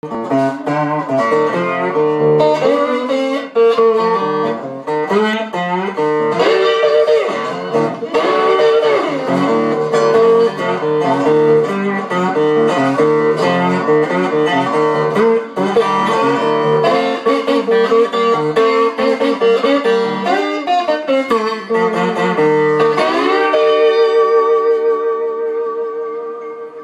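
Electric guitar with a body made from a bedpan, played as a blues: picked note runs that keep coming back to the same high note. Near the end a last chord is left to ring and fade.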